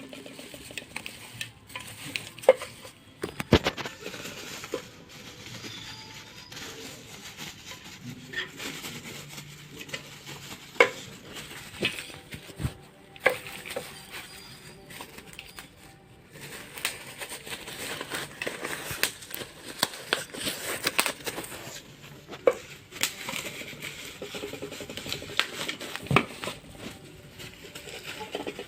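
Speaker packaging being handled: intermittent rustling and crinkling with scattered sharp clicks and knocks as the second speaker is taken out of its box.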